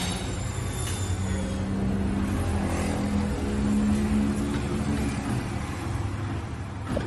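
A motor engine running steadily with a low hum, and a single knock near the end.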